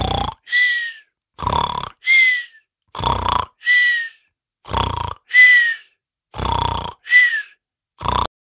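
Sleeping dog snoring hard through an open mouth: about five cycles in a steady rhythm, each a rasping snore followed by a high whistle that falls slightly in pitch, ending on one more rasp.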